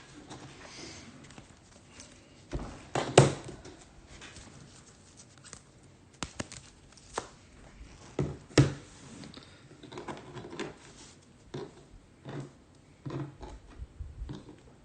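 Trading cards being handled on a table: scattered light clicks, rustles and taps as cards are picked up, slid through and set down, with a sharper knock about three seconds in and again about eight and a half seconds in.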